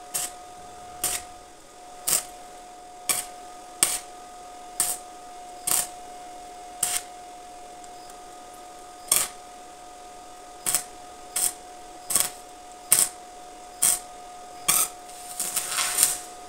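Electric arc welding on a bicycle frame: about fifteen short bursts of arc, roughly one a second, tack- or stitch-welding a joint, then a longer stretch of arc near the end. A steady thin whine runs underneath.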